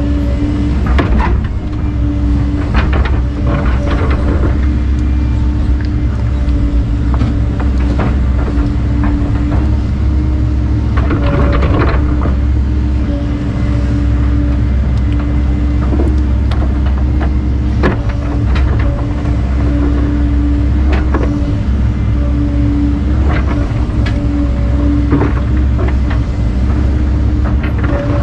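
Volvo excavator's diesel engine running steadily under working load, a humming tone swelling and easing as the hydraulics work, with scattered clanks and knocks from the bucket and tracks as it digs.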